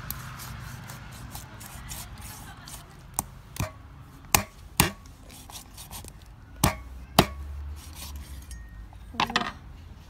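Meat cleaver chopping through a frog onto a wooden chopping board: several sharp chops, mostly in pairs about half a second apart.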